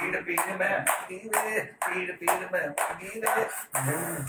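Hands clapping in a steady rhythm over a man's voice.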